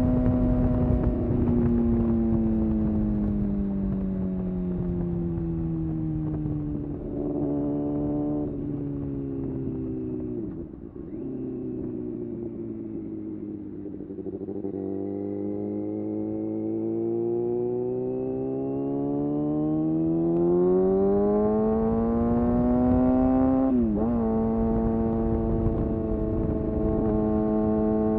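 Kawasaki ZX-6R inline-four sport bike engine under way, its pitch falling as it slows over the first several seconds, with a short rev blip about eight seconds in. The revs bottom out near eleven seconds, then climb steadily in a long pull until a sudden drop about 24 seconds in at a gear change, after which the engine holds a steady note.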